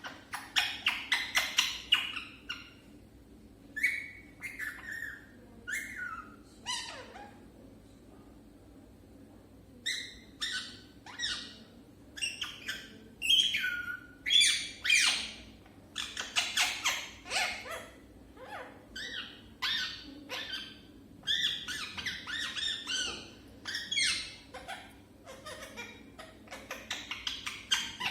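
Pet parrot calling in bursts of rapid squawks and chirps, some sliding down in pitch, broken by short pauses.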